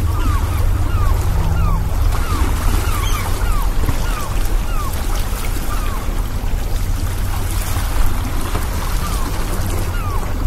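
Seaside harbour ambience: a steady rumble of sea and waves, with short falling bird calls repeating about every half second.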